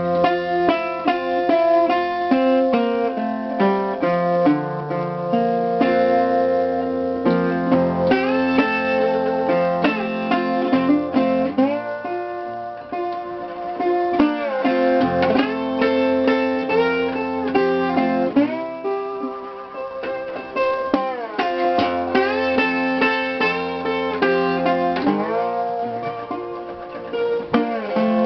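Resonator steel guitar played with a slide in a blues-folk instrumental break: picked notes and chords with repeated gliding slides up and down between them.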